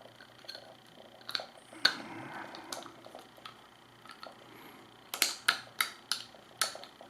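Sharp clicks and knocks of a power cable connector's housing parts being handled and fitted together, with a loud click about two seconds in and a quick run of five clicks near the end.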